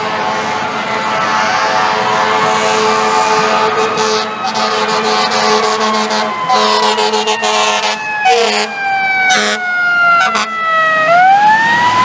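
FDNY fire truck's siren wailing as it approaches, its pitch sliding slowly down over several seconds and then swooping back up near the end. Idling city bus engines hum steadily underneath.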